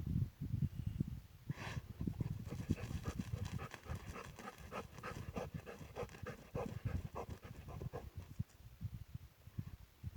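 A dog panting quickly, short breaths following one another in a steady run.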